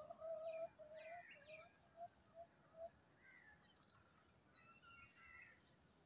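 Birds calling in the trees: a run of about seven short low notes that fade out over the first three seconds, with thin higher chirps over them and a few faint chirps near the end.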